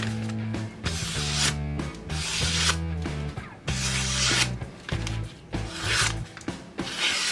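Repeated abrasive rubbing strokes, hand finishing on the knife, about one stroke a second, over background music with steady low notes.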